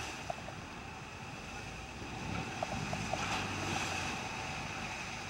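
A boat running through choppy open sea: wind and waves rushing past, with water washing against the hull and a faint steady whine over the noise. The water noise swells about three seconds in.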